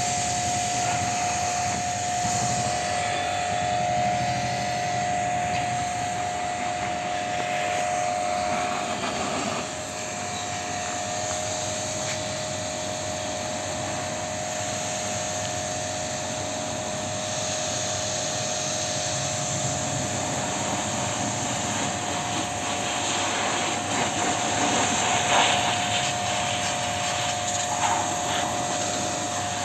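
Portable electric pressure washer running with a steady motor whine, its water jet hissing as it sprays an air-conditioner condenser coil. The whine shifts slightly in pitch and dips in level about nine seconds in.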